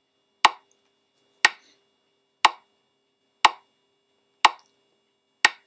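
Metronome click track playing back with the animation timeline: a short, sharp click exactly once a second, six times, marking the beat of the bar sheet.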